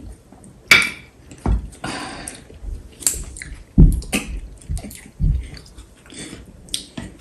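Close-up eating sounds: chewing on pounded yam and pepper soup with catfish, broken by scattered sharp clicks and knocks from chopsticks on the dish and a few low thumps.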